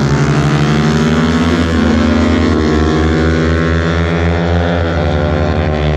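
Motorbike engine running hard while riding, its note shifting a few times as the revs change.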